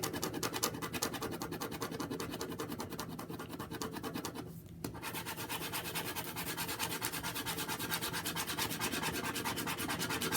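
Click ballpoint pen scribbling rapidly back and forth on paper, colouring in a shape with fast, even strokes; the scribbling stops for a moment about halfway through, then carries on.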